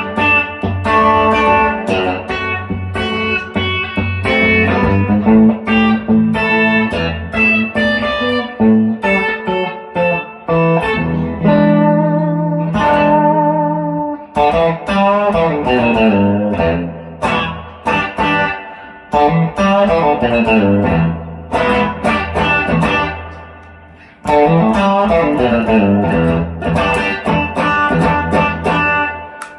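1957 Fender Esquire electric guitar with its original pickup, played clean through a 1965 Fender Deluxe Reverb amp: picked single-note licks and chords, with a short break a few seconds before the end before a new phrase starts.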